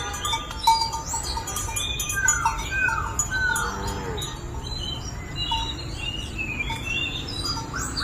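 Several birds chirping and calling, with repeated short notes and quick down-slurred whistles, over a steady low background rumble.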